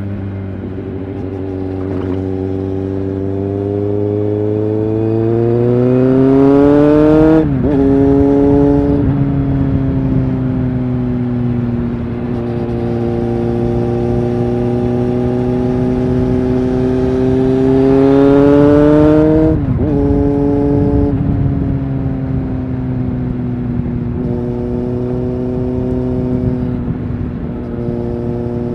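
Kawasaki Z750S motorcycle's inline-four engine accelerating on the road. The revs climb to a peak and drop sharply at an upshift twice, about a quarter of the way in and again about two-thirds in, then hold steady at cruising speed with small dips near the end.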